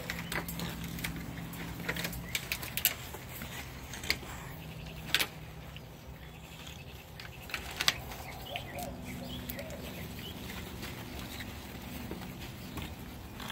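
Olde English Bulldogge puppies moving about and playing together on artificial turf, with a handful of sharp clicks and taps scattered through, the loudest about five and eight seconds in, over a low steady hum.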